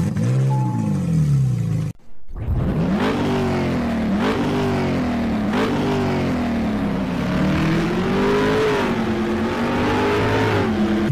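Car engine revving and accelerating, its pitch climbing and dropping back several times like shifts up through the gears, then a longer rise and fall near the end. It cuts out briefly about two seconds in before the run of revs starts.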